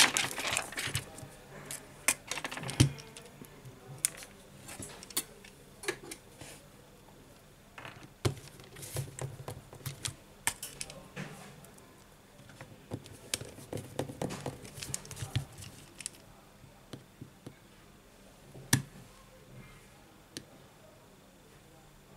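Plastic rear frame of a smartphone being pressed and fitted onto the phone body, giving irregular clicks and snaps as its clips seat, with light handling taps. The loudest clicks come at the start.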